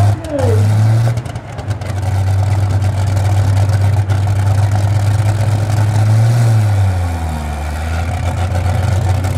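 Limited Super Stock pulling tractor's turbocharged diesel engine running loud and steady. Its note rises slightly about six seconds in, then drops back and eases off a second later.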